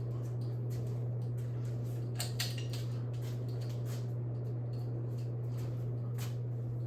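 52-inch Emerson Pro Series ceiling fan running, its motor giving a steady low hum under a faint rush of air, with a few light clicks about two seconds in and again near the end.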